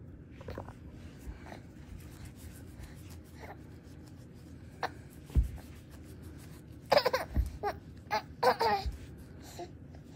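A baby laughing and babbling in short separate bursts, with a louder run of giggles about seven seconds in.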